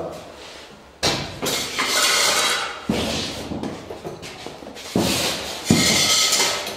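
Metal workshop stands being handled and shifted about: several scrapes and knocks, the first about a second in, each trailing off over about a second.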